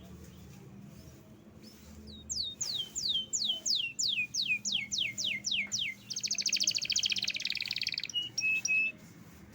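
Domestic canary singing. A run of about a dozen quick falling whistled notes starts about two seconds in, followed by a rapid trill of about two seconds and then a few short notes.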